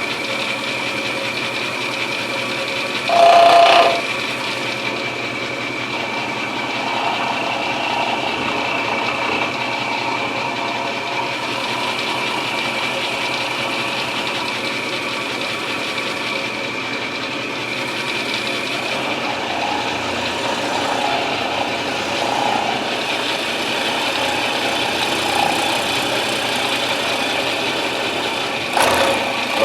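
Milling machine running steadily with a high whine, its cutter milling the action inletting into an English walnut gunstock. Two brief louder bursts come about three seconds in and near the end.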